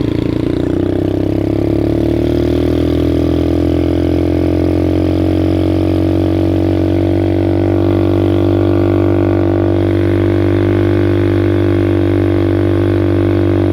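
ATV engine running at a steady speed, its pitch rising a little over the first few seconds and then holding level.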